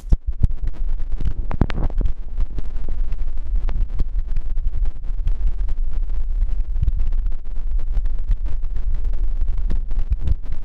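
Wind buffeting the microphone: a steady, loud low rumble, with many small clicks and crackles scattered through it.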